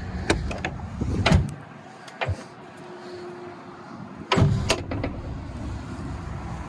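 Knocks, clicks and latch sounds from a John Deere 950J bulldozer's cab door and fittings, with two loud knocks about a second and a half in and again about four and a half seconds in. A low outside rumble drops away between the two knocks.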